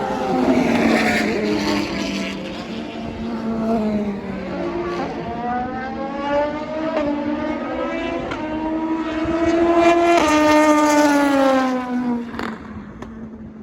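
Endurance prototype and GT race car engines at speed. The pitch falls at first, climbs steadily for about five seconds as a car accelerates, then falls away, with a sharp exhaust pop near the end.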